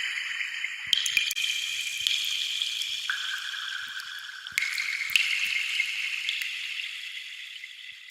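Water dripping and trickling, with a high ringing tone that jumps abruptly to a new pitch every second or two, and small scattered drip clicks underneath.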